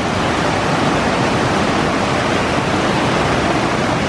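Rushing creek water: a steady, loud, even roar of water running over rocks.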